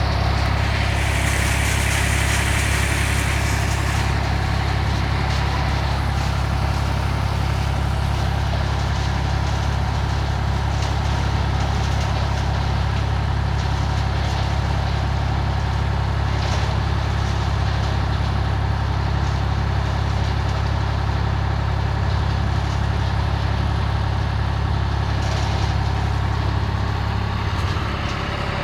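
Tractor engine running at a steady speed while powering a tractor-driven concrete mixer, with a steady low hum. A brief higher hiss joins in during the first few seconds.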